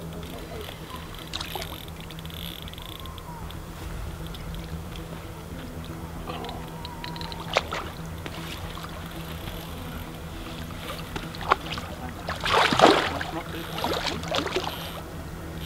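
Hooked carp splashing at the surface close to the bank as it is played on a rod. There are a few short sharp clicks first, then a loud burst of splashing near the end and a smaller one just after.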